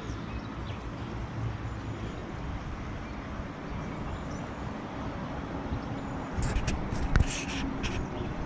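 Steady outdoor background noise with a low rumble, and a quick cluster of knocks and clicks on the microphone near the end.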